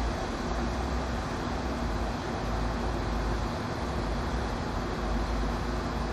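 Steady outdoor background noise: a low rumble with an even hiss over it, with no distinct events.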